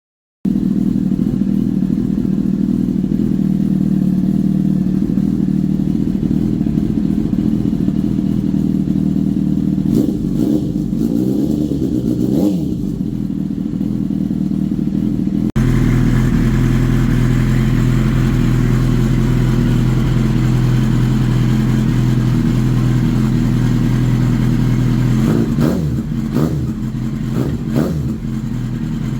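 Honda CBR1000RR SC57 inline-four idling through an aftermarket silencer, with a few quick throttle blips about ten seconds in. About halfway through it cuts abruptly to a different silencer with a lower idle note, blipped a few more times near the end.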